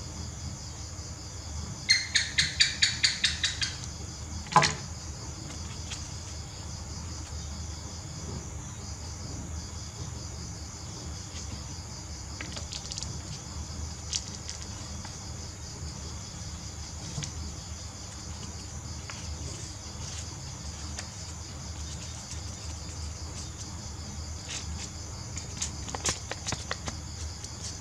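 Crickets chirping steadily. About two seconds in comes a quick run of about ten loud, sharp chirps, then a single fast falling sweep. Near the end, short clicks and crinkles of stiff paper being folded and handled.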